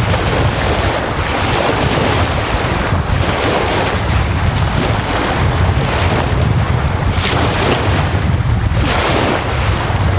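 Small wind-driven lake waves breaking and washing up a sandy beach, each wash swelling and fading every two to three seconds. A constant low rumble of wind on the microphone runs underneath.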